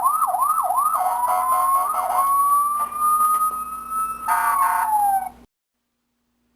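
Toy fire engine's electronic siren: several quick rising-and-falling yelps, then a long wail that slowly rises and holds. It ends with a harsher blast that falls in pitch and cuts off suddenly about five seconds in.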